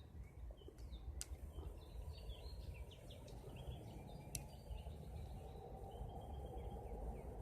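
Faint outdoor ambience with small birds chirping off and on over a steady low background noise. There are two sharp clicks, one about a second in and another about four seconds in.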